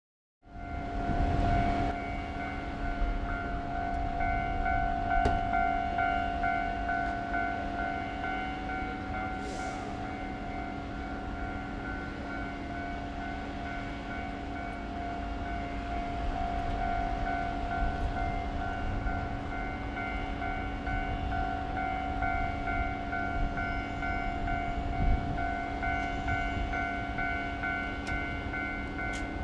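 Japanese level-crossing warning bell ringing steadily in a repeating electronic clang, over the low engine rumble of a DE70 diesel locomotive slowly approaching with a train of diesel railcars in tow.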